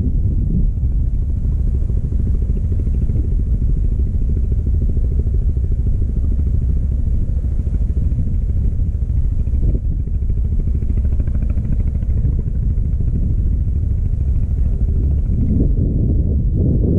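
A steady, loud low rumble that runs unbroken, swelling slightly near the end.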